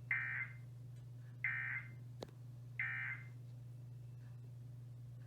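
Three short bursts of Emergency Alert System SAME digital data, the end-of-message (EOM) tones that close an EAS broadcast, each a fraction of a second long and about a second and a half apart.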